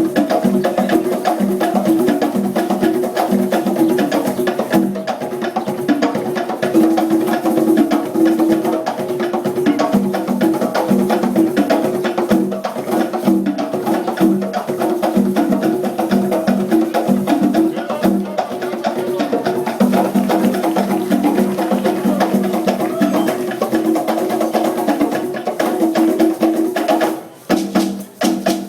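A group of drummers playing a fast, dense rhythm on pitched hand drums, stopping abruptly near the end.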